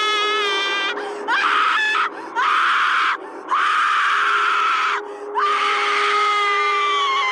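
A backbent possessed-girl Halloween animatronic screaming: a series of about five long, high-pitched shrieks broken by short gaps, the last one sliding slightly down in pitch. A steady low tone runs underneath.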